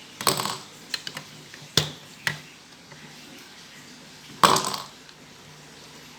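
Marbles clattering on a plastic marble run: a short rattle a quarter second in, two sharp clicks around two seconds in, and a louder rattling clatter near the end.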